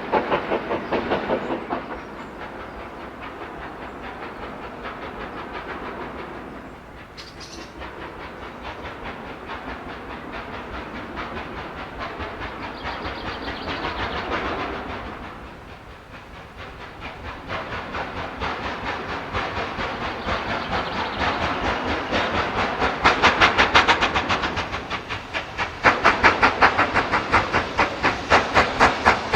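LMS Black 5 4-6-0 steam locomotive working, its exhaust beats coming in a steady rhythm of two to three a second over a hiss of steam. It grows louder in the last few seconds.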